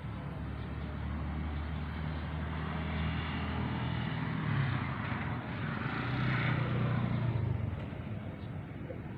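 A motor engine drones low and steadily, swelling louder about six seconds in and easing off again near the end.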